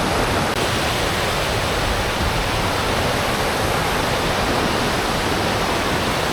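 Waterfall on a river: a steady rush of falling water.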